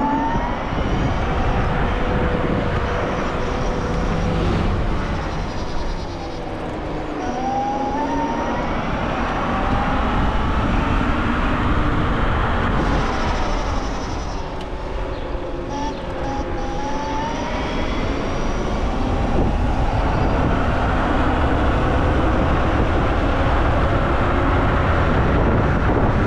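Dualtron X Limited electric scooter's hub motors whining under way, the whine rising in pitch several times as it accelerates, over a steady low rush of wind and road noise.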